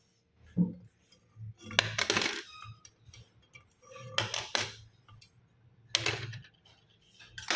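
Gold bangles clinking against each other and the stone bench block as they are picked up. The bright metallic clatters come in several short bursts with quiet between them.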